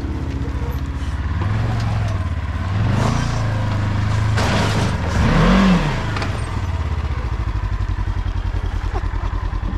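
Polaris Ranger XP 1000 side-by-side's twin-cylinder engine running as the machine pulls away over a dirt track. It revs up and back down twice, most strongly about five and a half seconds in, then settles to a steady run.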